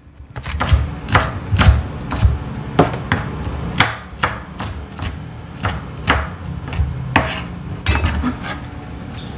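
Chef's knife slicing green chili peppers on a plastic cutting board, the blade knocking the board about twice a second in an uneven rhythm.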